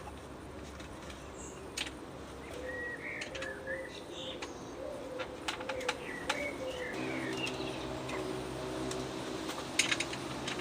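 Birds chirping and calling, with a few sharp clicks and knocks, the loudest near the end. A steady low hum comes in about seven seconds in.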